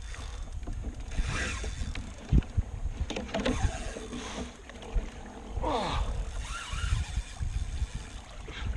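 Water sloshing and splashing against a kayak hull as it is towed by a large hooked fish, with a few sharp knocks on the boat. About six seconds in there is a short falling groan.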